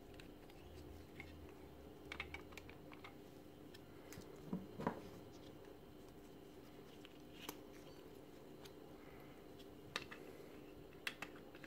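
Faint, scattered clicks and taps of a hard plastic drill battery casing and its 18650 cell pack being handled in gloved hands, the loudest a double knock about halfway through, over a low steady hum.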